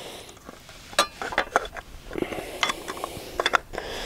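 Light metallic clicks and clinks of a hand working the silver ring off the right ascension axis of a Sky-Watcher EQ6R-Pro telescope mount, loosened from its grub screws.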